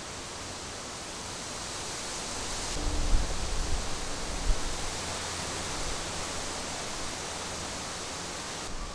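Steady outdoor hiss, with wind buffeting the microphone in low, irregular thumps from about three seconds in to about four and a half seconds in.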